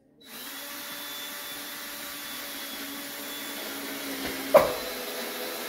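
Handheld cordless power tool motor running steadily for about five seconds, a hum with a high hiss, with one sharp knock about four and a half seconds in.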